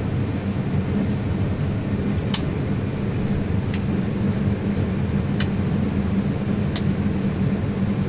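Steady low hum of running refrigeration machinery in a cold room, with a few faint sharp clicks.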